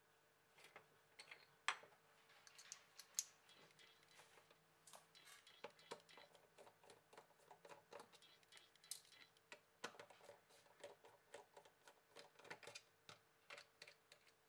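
Faint, irregular small clicks and taps of hands and a precision screwdriver working on the opened back housing of a Huawei Y5 II smartphone during disassembly.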